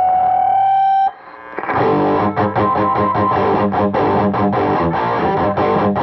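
Distorted electric guitar played through a Brown Sound in a Box overdrive pedal into a TPA3118 class-D amplifier module. A held note cuts off about a second in, and after a short pause a fast, choppy riff starts, full of short breaks.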